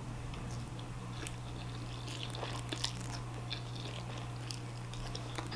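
A person chewing a mouthful of udon noodles: faint, soft mouth sounds with scattered small clicks, over a steady low hum.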